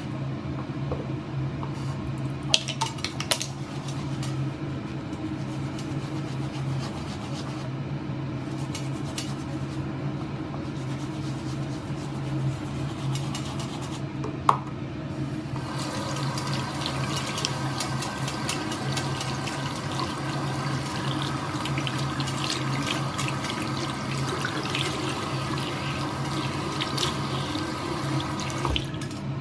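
Tap water running into a ceramic bathroom sink as makeup brushes are washed and scrubbed on a silicone cleaning pad. A few sharp clicks come in the first few seconds and again midway, and the water sound turns brighter and fuller about halfway through.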